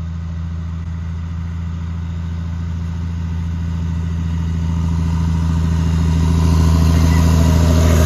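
Diesel engine of a semi truck hauling a silage box, driving closer: a steady low drone that grows louder over the second half as the truck nears.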